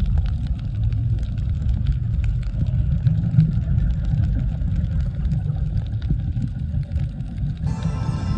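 Muffled underwater rumble picked up by a camera held under water, with faint crackling clicks over it. Music comes in near the end.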